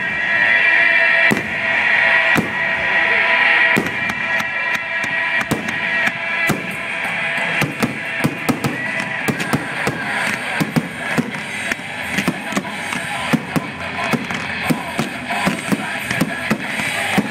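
Fireworks going off: repeated sharp bangs and crackle, coming thicker and faster in the second half, with music playing alongside.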